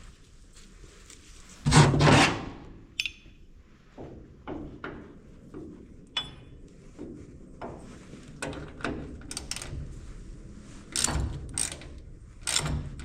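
Hand tools and metal parts clanking while the grain drill's gearbox is worked on. A loud scraping clatter comes about two seconds in, a ringing metal clink right after, then scattered light clicks and knocks.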